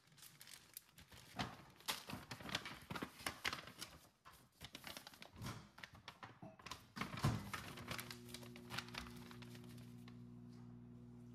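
Paper gift bags and plastic zip-top bags rustling and crinkling as they are handled and folded, with a few light knocks. About two-thirds of the way through, the rustling stops and a steady low hum continues.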